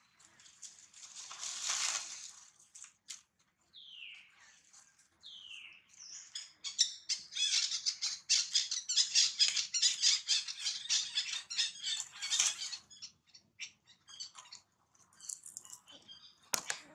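Birds calling: two short falling chirps, then several seconds of rapid, high chattering. A sharp click comes near the end.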